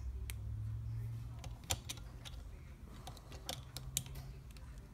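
Light plastic clicks and taps of Lego pieces being handled: a minifigure turned in the fingers and set on the Lego ferry model. The clicks are sharp and irregular, about half a dozen in all, the loudest a little under two seconds in.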